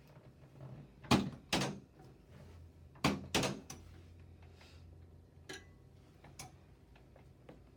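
Chiropractic Cox flexion-distraction table knocking as its hinged section is worked: two pairs of loud knocks, then a few lighter clicks.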